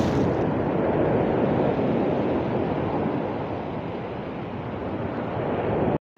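Steady rush of wind buffeting the microphone over breaking surf, easing a little midway and cutting off suddenly near the end.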